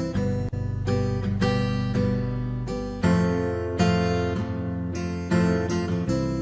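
Background music led by strummed acoustic guitar, with chords changing about every second over a steady bass.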